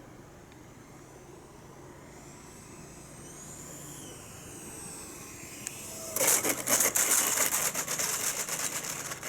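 80 mm electric ducted-fan RC model F-4 jet: faint and distant at first, then a loud rushing fan whoosh from about six seconds in as it comes close, with a falling pitch as it begins.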